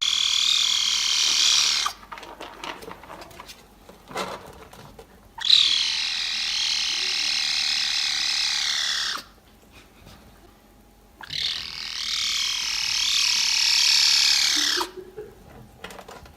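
A cat giving three long, high-pitched, wavering calls that sound like a laser beam; the second and third slide down in pitch as they end.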